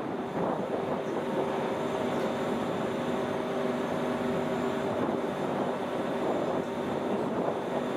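Steady drone of ship's engines and machinery: a constant hum with several steady tones over a rumble, unchanging throughout.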